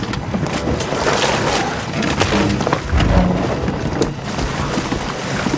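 Battle-scene soundtrack: music under a dense run of clashes, crashes and crumbling stone debris, with a heavy boom about three seconds in.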